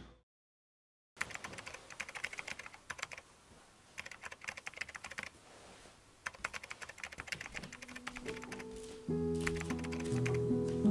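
Keyboard typing in quick bursts of clicks, starting after about a second of silence. Soft guitar music comes in near the end.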